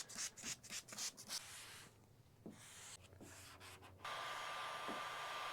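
A quick run of rubbing strokes, several a second, fading out after about a second and a half. Near the end a steady hiss with a faint high tone starts and then cuts off suddenly.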